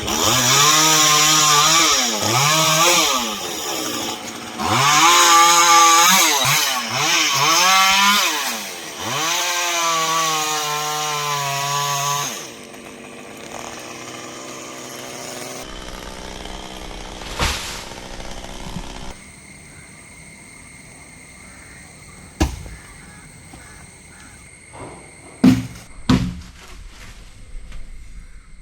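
Chainsaw running at high revs, its pitch dipping and climbing over and over as it cuts into a coconut tree trunk. About twelve seconds in the saw goes quiet, leaving a low steady sound and a few sharp knocks near the end.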